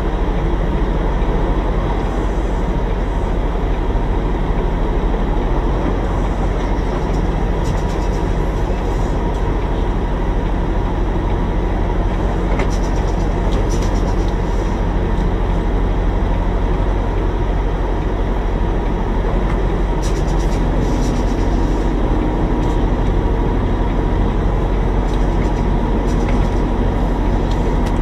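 Semi-truck diesel engine running steadily at low idle, heard from inside the cab as a continuous drone with a deep hum. A few faint ticks sound now and then.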